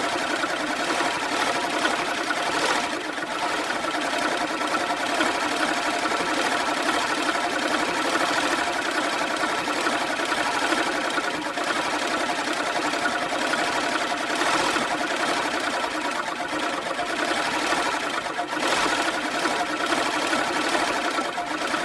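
Manual push reel lawnmower being pushed, its spinning blades giving a steady, even mechanical whirring with several held tones and no engine.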